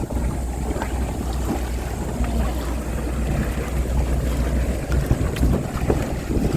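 Engine of a motorized outrigger boat (bangka) running steadily under way, a low even drone, with wind rushing over the microphone.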